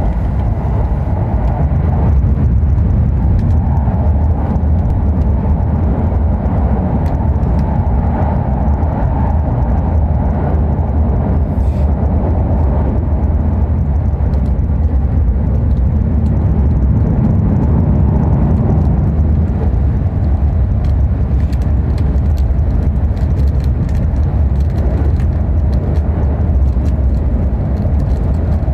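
Inside the passenger cabin of the Rapid Marine Liner electric train running at speed over a steel truss bridge: a steady low rumble of wheels on rail, with the hum and rush of the moving train on top.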